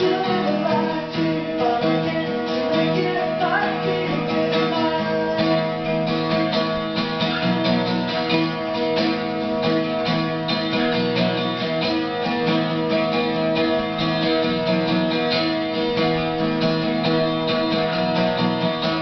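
Acoustic guitar strumming steady chords in the instrumental ending of a song.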